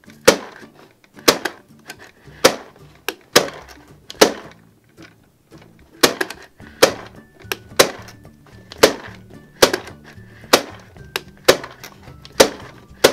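Toy popcorn maker cranked by hand, its plastic popping mechanism giving sharp clacks about once a second, with a short pause a little before the middle. Faint background music runs underneath.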